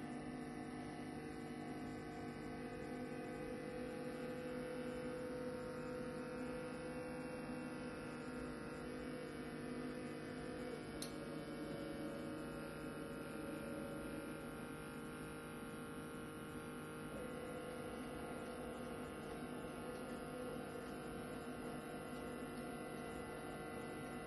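Stepper motors of a 3D-printed robot arm humming steadily with several high tones while the arm moves slowly; the tones shift about halfway through and again about two-thirds of the way in.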